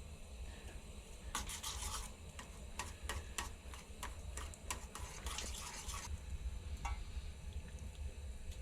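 A utensil scraping against cookware in two short bouts, with light clicks and taps between them, over a steady low hum.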